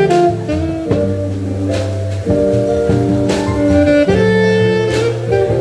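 Taiwan-made alto saxophone with a DD Peng mouthpiece playing a jazz melody live, its natural unprocessed tone heard over a walking double bass line and keyboard accompaniment.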